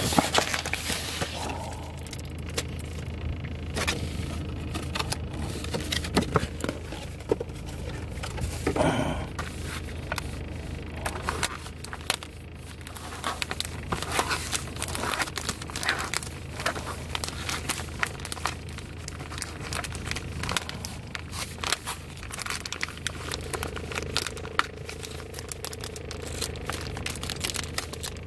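Cardboard sleeve and plastic packaging of a Lunchables pizza kit being opened by hand: irregular crinkling, tearing and crackling as the clear plastic film is peeled back from the plastic tray, over a steady low hum.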